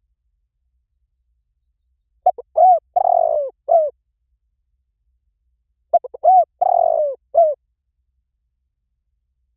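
Spotted dove cooing: two phrases about three and a half seconds apart, each a few short notes, a longer falling coo and a short closing note. It is a recorded song meant to be played as a lure to set other spotted doves cooing back.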